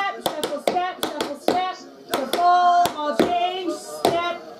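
Tap shoes' metal taps striking a stage floor in quick, uneven rhythmic clicks of steps and shuffles, with a voice singing along over the taps.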